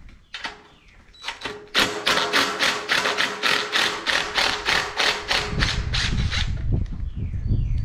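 Cordless impact driver with a 7/16 socket hammering out a shroud bolt on a Briggs & Stratton 8 hp engine. After a brief blip, the motor whines and rattles out rapid impacts for about five seconds, then stops.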